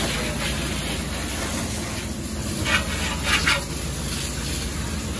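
Long-handled scrub brush washing the side of a van, water spraying and bristles scrubbing the panel, over a steady low rumble. A few short, brighter scrubbing strokes come about halfway through.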